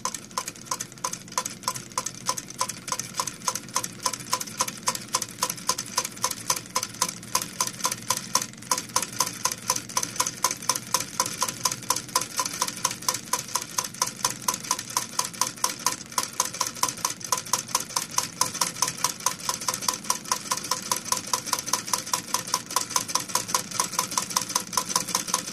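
Hog Stirling engine running and driving a Wilesco tin woodcutter toy by a rubber belt: a steady, rapid clacking of the little mechanism, several clacks a second.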